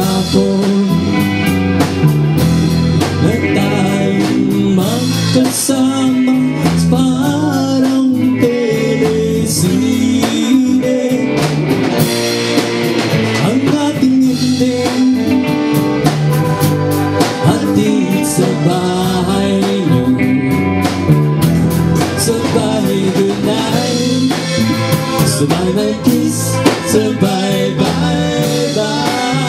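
Live band playing a song: a man singing into a microphone over electric guitar, bass guitar and drum kit.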